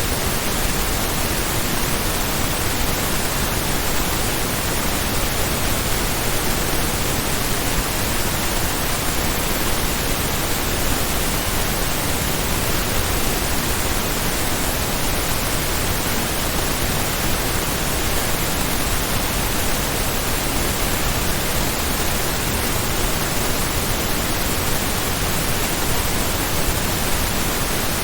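Steady pink noise test signal in true stereo, a constant even hiss at a fixed level.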